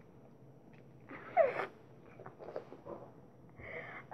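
Quiet, breathy stifled laughter in a few short bursts, the loudest about a second and a half in with a falling pitch.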